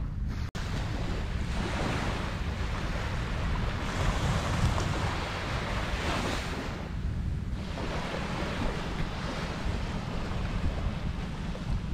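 Wind buffeting the microphone over the wash of small waves breaking on a sandy beach, the noise swelling and easing a couple of times.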